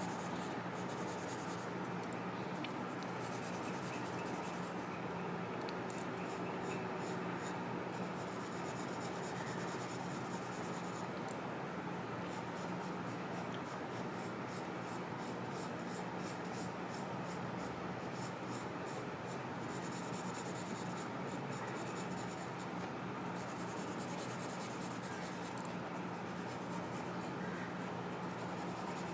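Pencil point scratching across drawing paper in quick, even back-and-forth hatching strokes as a circle is shaded, with a couple of short pauses. A steady low hum runs underneath.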